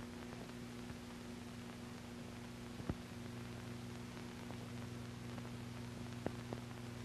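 Faint steady hum and hiss of an old film soundtrack between narration, with a few faint clicks.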